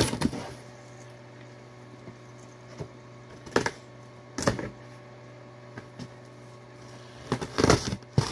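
Cardboard box being opened by hand: short rustling and scraping bursts of tape and cardboard, the busiest near the end, over a steady low hum.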